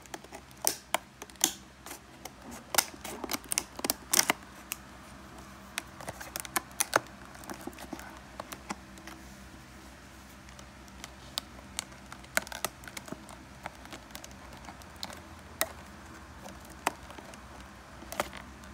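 Hands handling and opening a small cardboard product box, the dimmer's packaging: scattered sharp clicks, taps and rustles, thickest in the first few seconds and sparser after.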